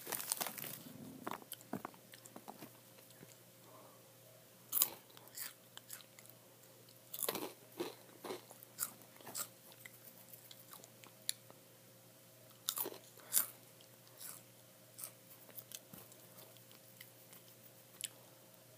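A person biting and chewing crunchy Hot Cheetos, with irregular sharp crunches every second or so and a few louder bites.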